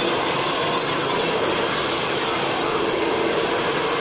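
Hair dryer running steadily: an even, unbroken rushing hiss.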